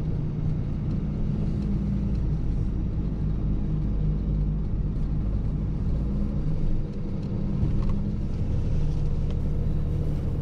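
Hook-lift dumpster truck's diesel engine and road noise while driving, a steady low rumble with a brief dip in loudness about seven seconds in.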